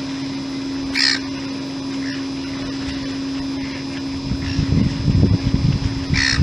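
Seagulls calling: a loud, short call about a second in and another near the end, with fainter calls between. Low rumbling comes in during the second half.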